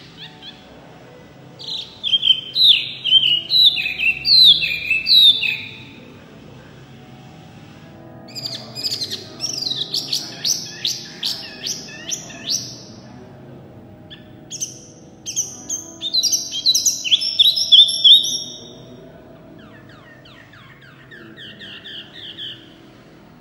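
Caged mini hwamei ('wambi mini') singing loud, rapid phrases of clear sweeping notes. The song comes in four bursts with short pauses between them, and the last burst near the end is softer.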